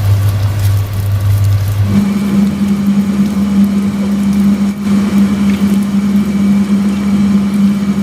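Wonton wrappers deep-frying in a pan of oil, a soft sizzle under a loud steady electrical hum. The hum jumps to a higher pitch about two seconds in.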